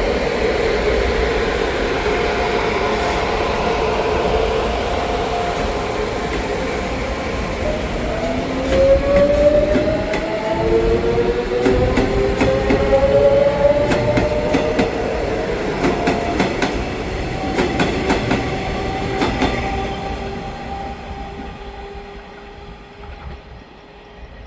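EMU500 electric commuter train accelerating away, its traction motors whining in several tones that glide upward in pitch from about a third of the way in. Wheels click sharply over rail joints in the middle, then the sound fades out near the end.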